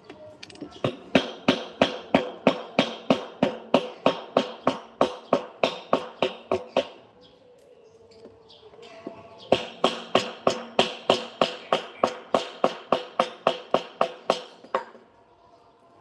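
Hammering: two runs of rapid, evenly spaced blows, about four a second, each with a short ring, with a pause of a couple of seconds between the runs.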